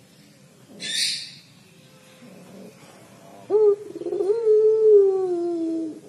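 Puter pelung (Barbary dove) giving its drawn-out 'crying' coo: a short rising note about three and a half seconds in, then one long call that slowly falls in pitch. A brief hiss sounds about a second in.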